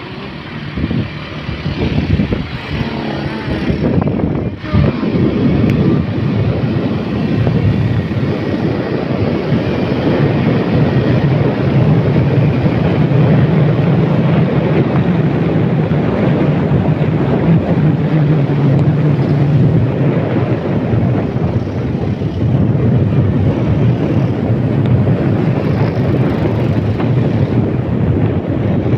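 A vehicle engine running steadily while moving, with wind noise on the microphone.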